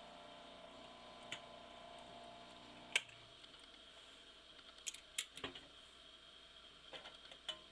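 Industrial sewing machine's motor humming faintly with the needle still, cut off by a sharp click about three seconds in. Scattered light clicks follow as the work is handled.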